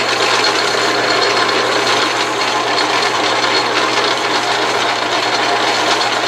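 Atlas/Craftsman 12-inch metal lathe running in forward with the leadscrew driving the carriage on a thread-cutting pass: steady gear-train noise over a low, even motor hum.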